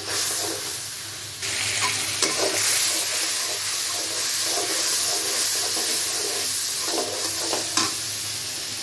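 A spice masala of onion, garlic, turmeric and chilli sizzling in oil in a metal pot while a metal spatula stirs and scrapes it, with a little water just added to fry the spices down. The sizzle grows louder about a second and a half in.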